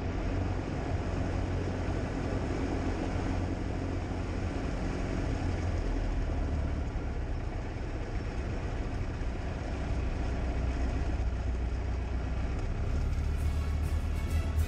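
1939 Piper J-3 Cub's engine and propeller running steadily, a low drone heard from inside the small fabric-covered cabin.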